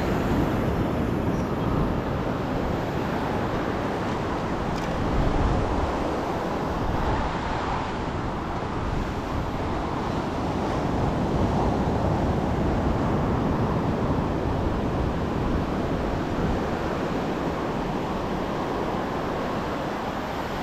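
Steady rush of surf breaking on a sandy beach, mixed with wind buffeting the microphone, swelling slightly about five seconds in.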